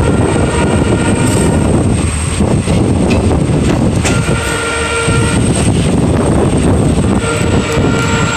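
Passenger train running along the track, heard from the open doorway of one of its own coaches: a loud, steady rumble of wheels on rail.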